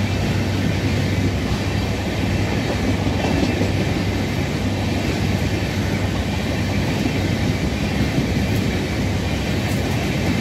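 LHB passenger coaches of an express train rolling past, a steady, unbroken noise of wheels running on the rails.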